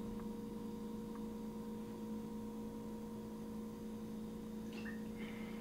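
Low, steady electrical hum with several even tones, like mains hum on the recording, with a few faint small clicks near the end.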